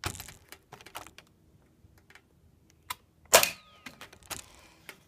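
A .177 Benjamin Summit break-barrel air rifle firing once: a single loud, sharp crack a little over three seconds in, among lighter clicks and knocks from handling the gun.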